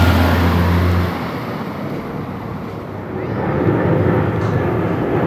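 Vehicle rumble: a low engine hum that drops away about a second in, then a broad rumble of passing traffic or an aircraft that fades and builds again.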